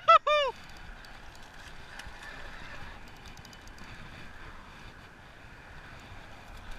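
A man shouting an excited "yeah!" in the first half second as a bass is hooked, then a spinning reel being cranked against the fish, with a faint run of ticks a couple of seconds in over light wind on the microphone.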